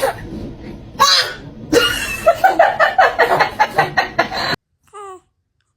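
A baby sneezes once, sharply, about a second in, followed by a few seconds of rapid, high-pitched laughter that stops abruptly. A short high baby squeal follows near the end.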